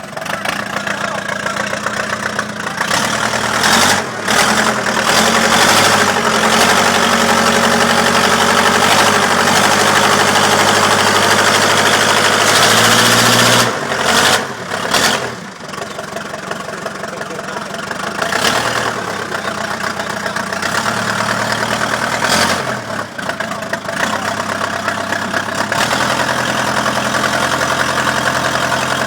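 Case backhoe's diesel engine running, held at higher revs from about three seconds in until about thirteen seconds, then dropping back toward idle. A few sharp knocks come through along the way.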